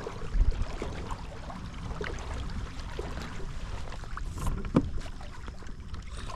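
Wind buffeting the microphone as a low, steady rumble, with water lapping against a kayak hull and a scattering of small knocks.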